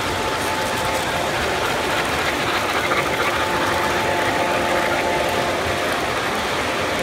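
O gauge model trains running fast on three-rail track: a steady rattle and clatter of wheels on the rails, with a faint steady whine.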